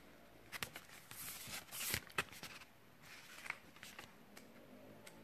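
Faint handling noise: light rustling with a few small, sharp clicks and taps scattered through.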